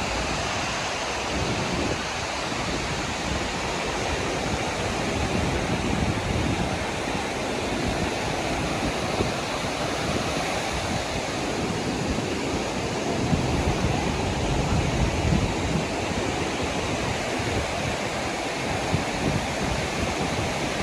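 Sea waves washing onto the beach in a steady surf, with wind rumbling on the microphone.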